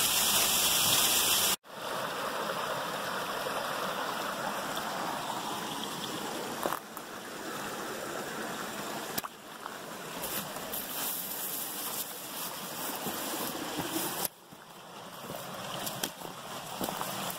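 A loud steady hiss cuts off abruptly about a second and a half in. Then a shallow creek flows and trickles over rocks, with scattered footsteps on rock and gravel in the later part.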